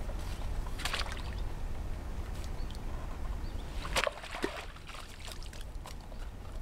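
A hooked bream splashing and thrashing at the surface as it is drawn to the bank on a feeder rod: a sloshing splash about a second in and a louder one about four seconds in.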